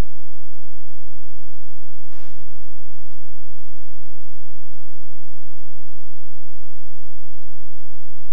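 Loud, steady electrical mains hum and buzz, a stack of unchanging tones, filling the audio feed with no speech coming through. A short burst of hiss comes about two seconds in, with a faint click about a second later.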